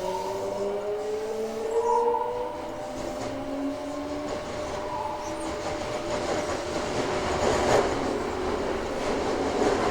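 Toei 5300 series train's Mitsubishi GTO-VVVF traction inverter and motors under power. A set of stepped tones changes pitch, one rising steadily over the first two seconds or so. The tones then fade under growing wheel and rail rolling noise. This trainset's sound during acceleration and braking is unusually loud.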